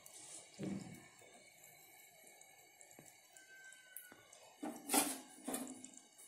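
Quiet, faint steady hiss broken by a few brief soft knocks and rustles, the loudest two about five seconds in.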